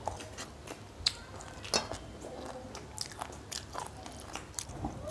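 Close-up eating sounds of people chewing mouthfuls of chicken curry and rice: irregular wet smacks and clicks of the mouth.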